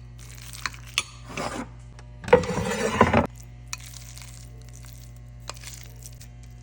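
Kitchen utensil clinking and scraping in a bowl as shredded chicken is mixed with egg and seasonings: a few sharp clinks, then about a second of louder scraping, then light rustling.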